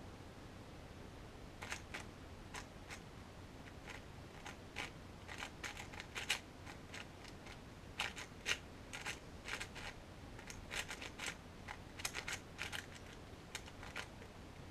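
Layers of a QiYi MS magnetic 4x4 speed cube clicking and clacking as they are turned fast by hand. The clicks come in quick irregular flurries from about two seconds in, with short pauses between bursts.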